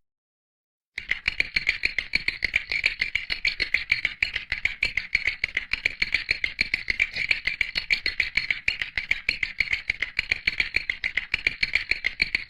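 Clacking sound effect of stiff teeth or beak: a fast, steady train of dry clicks, many a second, starting about a second in after a short silence.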